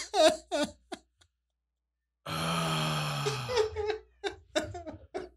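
Two men laughing hard, with a long drawn-out laugh that falls in pitch about two seconds in, then breaks into short bursts of laughter.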